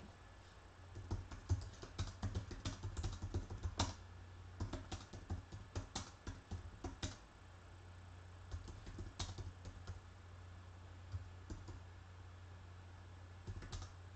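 Typing on a computer keyboard: a run of quick keystrokes lasting about six seconds, then a few scattered key taps.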